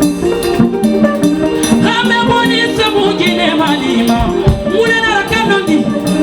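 Guinean popular music with a singing voice over a steady bass line and a regular percussion beat.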